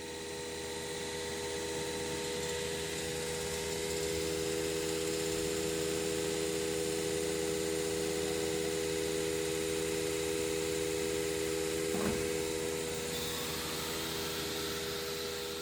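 Nesting CNC router running with its vacuum hold-down pump on and the spindle turning: a steady machine hum with several steady tones. There is a short knock about twelve seconds in, and a higher hiss joins just after.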